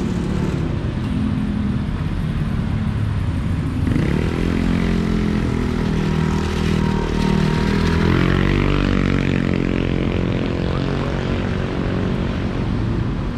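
Street traffic at a city intersection. From about four seconds in, a vehicle engine grows louder and its pitch shifts for several seconds as it passes.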